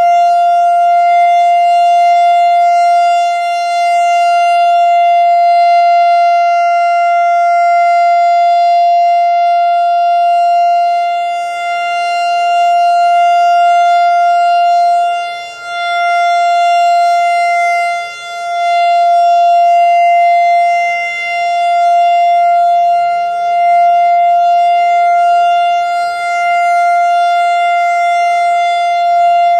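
Analog Whelen WS-3016 electronic outdoor warning siren sounding its Alert signal: one loud, steady tone with a buzzy edge, at a healthy full output. In the second half its loudness dips briefly every two to three seconds as the rotating speaker head turns away and back.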